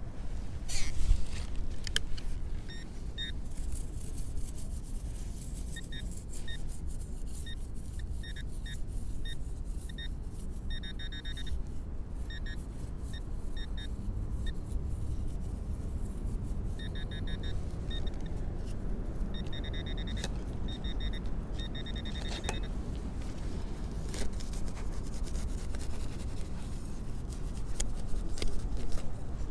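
Handheld metal-detecting pinpointer beeping in short high beeps, in quicker buzzing runs at times as its probe nears a target in a dug hole. Under it, hands and the probe scrape through soil and grass, loudest in a brief burst about a second in.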